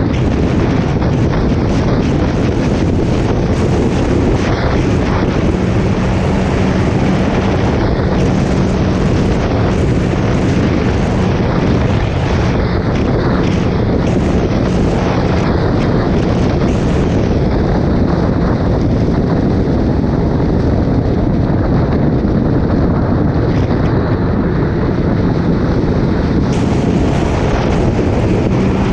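Suzuki Hayabusa's inline-four engine running at a steady cruise on the move, buried under heavy wind rush on the microphone.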